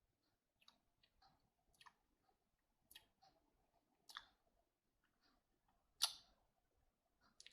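Near silence broken by about a dozen faint, short clicks and ticks at uneven intervals, the loudest a brief one about six seconds in.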